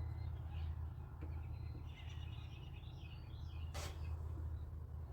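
Small birds chirping over a steady low hum, with a single sharp click about three-quarters of the way through.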